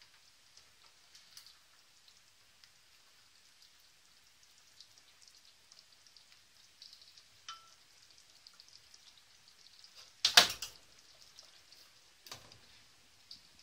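Pot of palm nut soup simmering, a faint steady crackle of small popping bubbles. About ten seconds in comes a loud clatter at the steel pot, and a softer knock about two seconds later, as the glass lid goes on.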